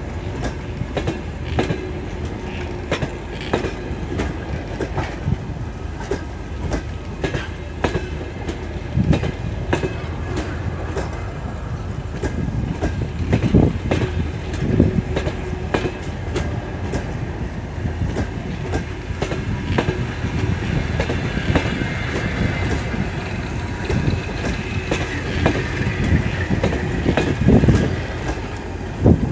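Passenger coaches of a departing train rolling past, their wheels clicking and thudding over the rail joints.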